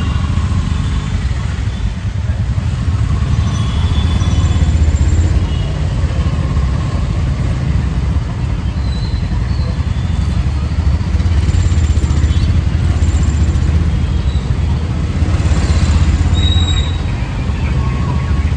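Auto-rickshaw's small engine running steadily as it drives, a low rumble heard from inside the open cabin, with the hiss of traffic on wet road around it.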